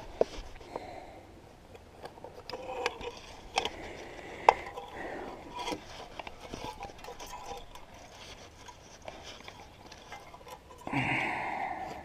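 Gloved hands handling aluminium drink cans and rope: a low rustle and rubbing broken by about half a dozen light, sharp clicks of cans knocking. A short mumbled vocal sound comes near the end.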